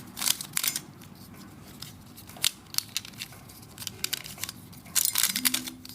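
Plastic Pyraminx puzzle being turned by hand: sharp clicks of its pieces snapping round, a few spaced out, then a quick run of clicks about five seconds in.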